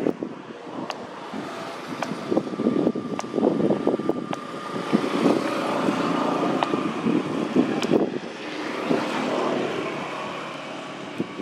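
A motor vehicle's engine running nearby, growing louder towards the middle and fading near the end, over rough rustling and scattered knocks close to the microphone.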